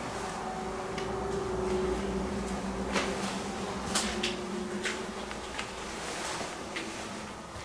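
A steady low hum with a scattered series of short, sharp clicks and light knocks, the loudest about four seconds in.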